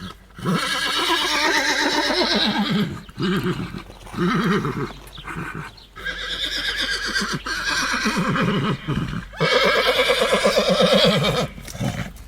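Horse neighing: several long, wavering whinnies one after another, the loudest near the end.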